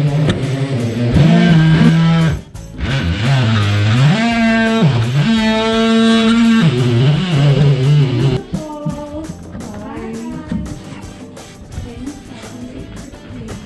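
Background music led by electric guitar, with a wavering lead line; it drops to a quieter passage about eight seconds in.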